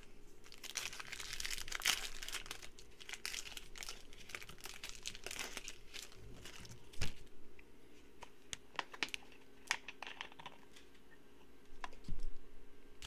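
Foil wrapper of a Donruss basketball card pack crinkling and tearing as it is opened by hand, followed by scattered clicks and knocks as the cards are handled, with a sharp thump about halfway through.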